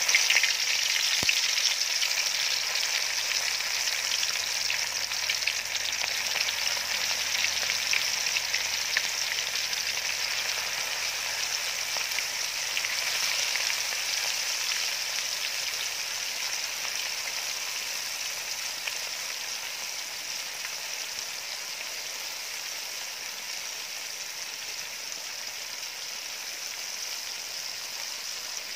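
Flour-coated fish pieces deep-frying in hot oil in a metal wok: a dense sizzle with fine crackling that is loudest near the start, just after the fish goes in, and slowly quietens as it fries.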